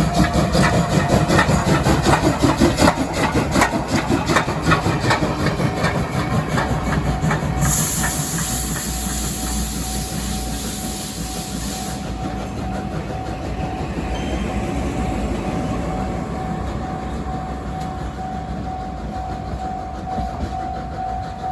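SL Hitoyoshi steam train passing over a level crossing: the wheels click rapidly over the rail joints, fading after about seven seconds. About eight seconds in, a hiss lasts about four seconds. A level-crossing warning bell keeps ringing as one steady tone.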